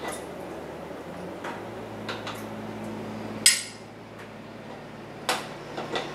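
Metal kitchen tongs clinking against a canning funnel and glass mason jars while chunks of pot roast beef are dropped in. There are several light clicks, a sharp ringing clink about three and a half seconds in, and another firm knock near the end, over a low steady hum.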